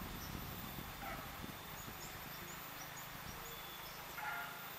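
Quiet rural track-side ambience: a low steady hum from the distant approaching diesel locomotive, with small high bird chirps a few times and a short pitched animal call near the end.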